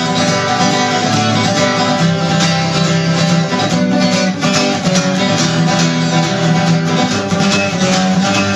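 Guitar strummed in a steady rhythm, playing chords through an instrumental passage with no singing.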